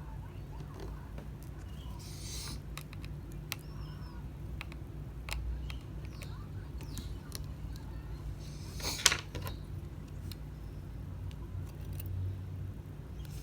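Small scattered clicks and taps of a precision screwdriver and tweezers on the iPhone XR's internal screws and parts, as small screws are taken out. One sharper click about nine seconds in. A steady low hum runs underneath.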